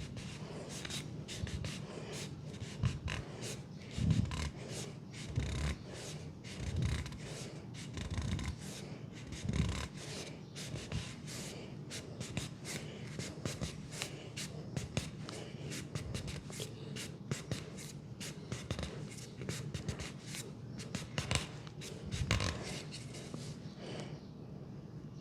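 Hands giving a fast leg massage: a dense run of quick rubbing, patting and slapping strokes on skin, with several heavier thumps in the first ten seconds.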